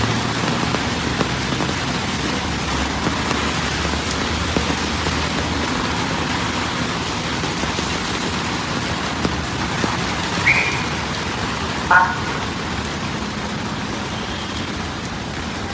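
Heavy rain pouring steadily onto hard surfaces. Two brief pitched sounds cut through it, a short high tone about ten seconds in and a slightly longer, louder one about two seconds later.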